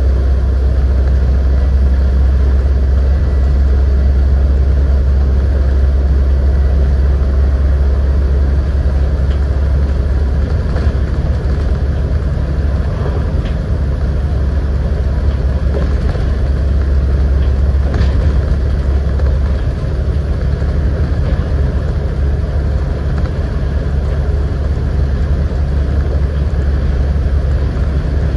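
Scania N94UD double-decker bus's diesel engine running steadily under way, a deep low drone with road and tyre noise over it. A few light rattles or ticks come in the middle.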